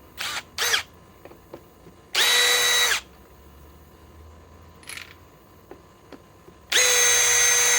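Cordless drill driver, clutch set to 8, run in two steady bursts of about a second each at an even pitch, backing an old screw out of a wood stump. Two brief blips come just before.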